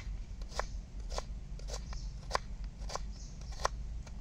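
Kitchen knife slicing a red onion on a wooden chopping board: a crisp cut ending in a knock of the blade on the board, about seven steady strokes a little under two a second.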